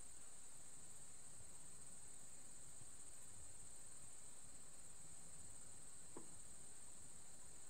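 Faint, steady, high-pitched insect chorus over a low wind rumble in open grassland. A single brief, faint tick comes about six seconds in.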